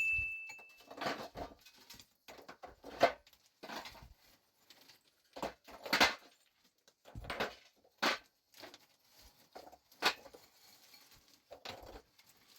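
A series of irregular knocks, one every second or so, the sharpest about three, six and eight seconds in.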